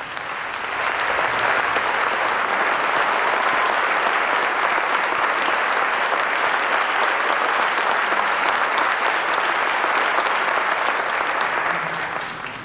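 Concert audience applauding: a dense wash of clapping that swells in about the first second, holds steady, and dies away near the end.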